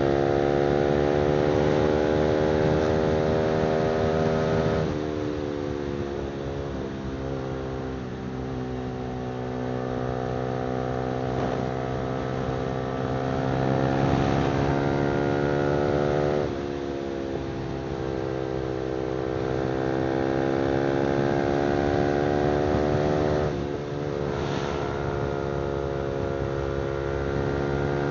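Honda CBR300R's single-cylinder engine running through an aftermarket exhaust under way. Its pitch climbs slowly and drops sharply about 5, 16 and 23 seconds in, at gear changes.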